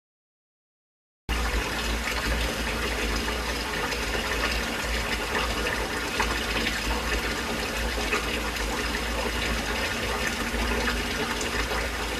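Tap water running steadily, as when filling a sink or basin; it starts abruptly about a second in after a short silence.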